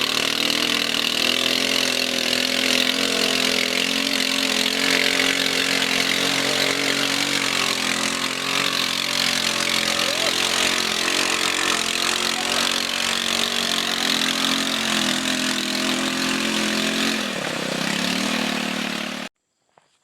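Small motorcycle engine running hard, its pitch wavering, dipping and rising again near the end before cutting off abruptly.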